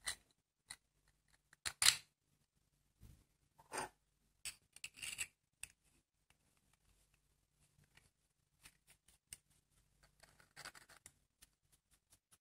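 Faint, scattered clicks and short scrapes of hard 3D-printed plastic parts knocking and rubbing together as a printed plastic screw and pusher are fitted into a printed ball-head body.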